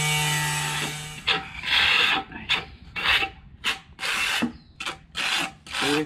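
A steady machine hum cuts off about a second in. Then comes a hand abrasive pad rubbing the edge of a porcelain tile in rasping strokes, about two a second, to smooth the cut edge.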